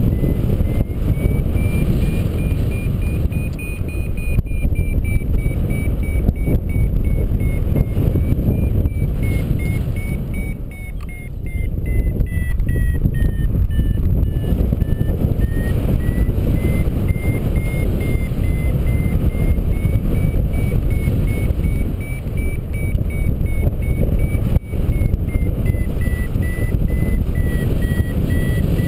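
Heavy wind rushing over the microphone, with a paragliding variometer beeping steadily on top, its pitch drifting up and down as the climb rate changes, the sign that the glider is climbing in lift. The wind eases briefly a little before the middle.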